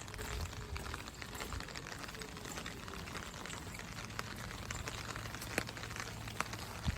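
Steady rain falling, a soft even hiss with scattered ticks of drops, a few sharper ones near the end.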